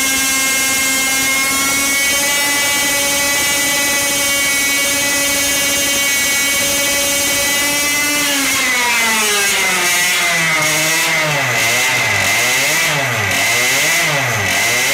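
Tuned two-stroke engine running at a high, steady pitch of about 16,000–17,500 rpm under the dyno's brake load. About eight seconds in, the revs drop and then swing up and down roughly once a second, the RPM fluctuation that spoils the dyno run.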